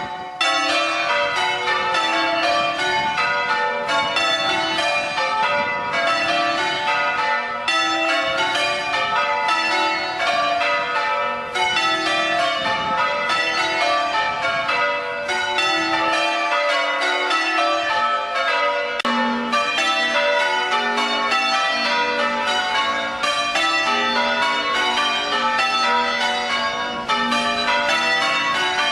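Church tower bells change ringing: the bells strike one after another in a quick, even rhythm, their order shifting from row to row.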